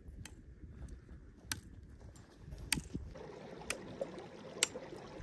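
Sharp clicks, a bit over a second apart, of trekking-pole tips striking stones over a low rumble. About three seconds in, a small mountain stream trickling among rocks comes in, with two more clicks over it.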